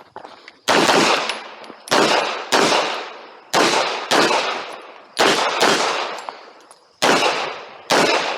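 Handgun shots fired during a competition stage: nine loud shots at uneven spacing, some about half a second apart and others a second or more apart, each ringing on and fading over most of a second.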